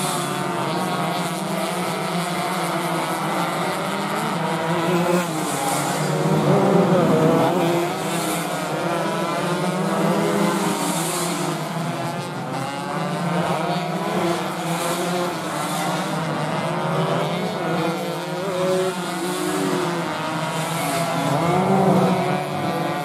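Several two-stroke 125 cc underbone racing motorcycles running hard, their overlapping engine notes rising and falling again and again as they accelerate out of and brake into the corners.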